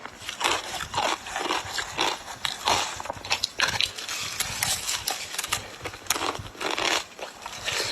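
Ice being crunched and chewed close to the microphone: irregular sharp crackling crunches, about two or three a second, running together into a denser crunching stretch midway.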